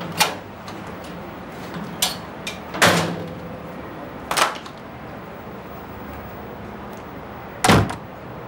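About five separate knocks and thuds of high-heeled shoes being kicked off and landing on the floor, with the heaviest, deepest thud near the end.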